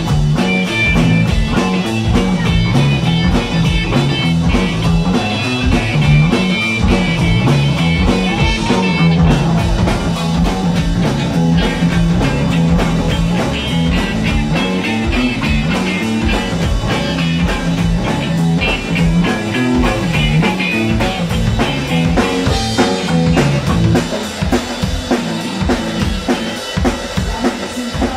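Live rock band playing an instrumental break with no vocals: electric bass guitar and drum kit, with cymbals and snare driving the beat, and a higher melodic line over the first nine seconds or so.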